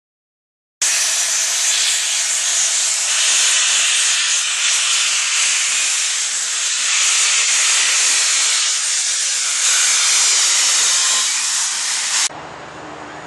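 Steam locomotive venting steam: a loud, steady hiss that starts abruptly about a second in and cuts off sharply near the end, leaving a quieter low hum.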